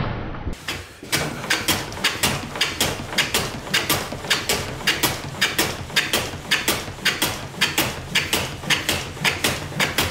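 Hand plane run on a mitre shooting board, trimming mitre cuts: a quick, even run of short shaving strokes, about two a second, each a brief hiss of the iron taking a shaving.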